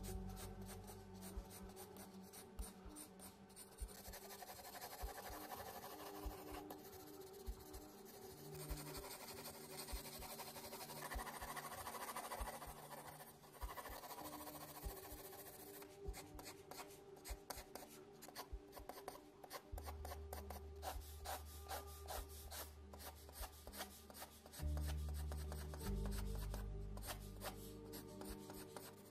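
Graphite pencil shading on sketchbook paper: rapid, repeated scratchy strokes. There is a stretch of longer, more continuous rubbing strokes in the middle.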